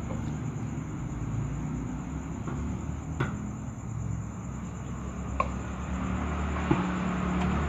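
Steady low background rumble, with a few sharp clicks of a spoon against the cats' food plate, about three and five seconds in.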